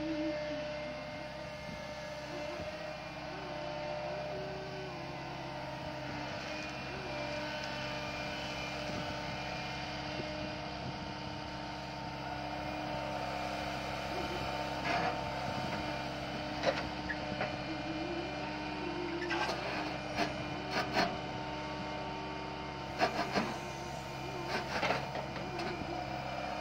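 Walking excavator's engine running steadily under hydraulic load, its pitch rising and falling as the legs and boom move. A few short knocks come in the second half.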